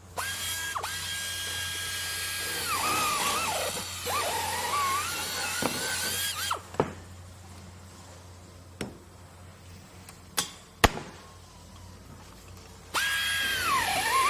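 Power drill running with a high whine that holds steady, then dips and wavers in pitch as it bites, stopping about six seconds in. A few sharp knocks sound in the pause, and the drill starts up again near the end.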